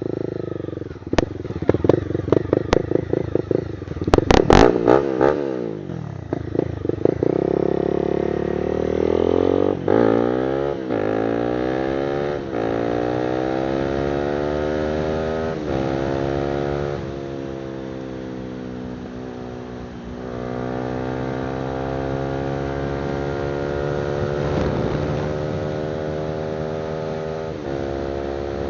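Honda CBR300R single-cylinder engine through an aftermarket exhaust. It starts choppy and uneven, with a few sharp knocks about four seconds in. Then it pulls up through the gears, the pitch climbing and dropping back at each upshift, and settles into a steadier run that slowly sags and then rises again.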